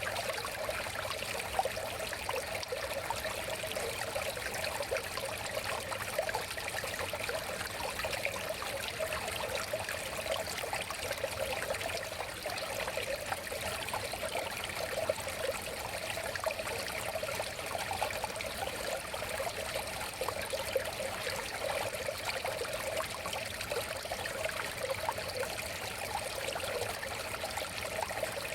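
Shallow river water flowing and babbling steadily, with a dense, even trickling and splashing that never lets up.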